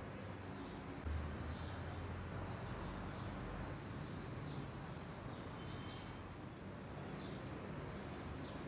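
Small birds chirping in short, repeated calls over a steady low hum of outdoor background noise.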